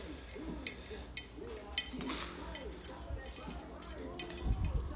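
Scattered light clinks and clicks of handling, over a faint voice in the background, with a low bump on the microphone near the end.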